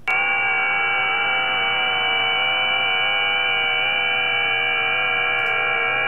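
SDR receiver audio from the 20 m FT8 frequency, 14.074 MHz: many FT8 digital signals sounding at once as steady tones at different pitches over band hiss, with nothing above about 3 kHz. It comes on abruptly at the start.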